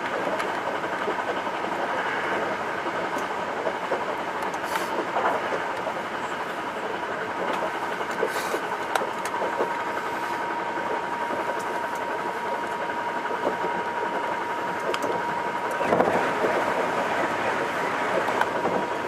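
Hankyu 9300 series electric train running at speed on the Kyoto Line: steady rolling rumble with scattered sharp clicks from the rails, and a thin steady tone above it. The running noise grows louder about sixteen seconds in.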